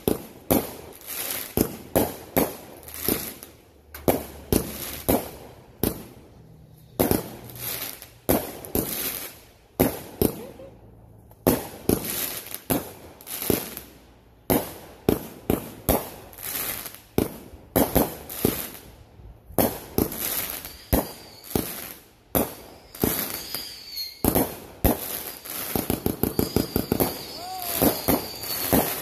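Consumer fireworks going off: a long irregular series of sharp bangs and crackling pops, then a quick run of about six pops a second near the end.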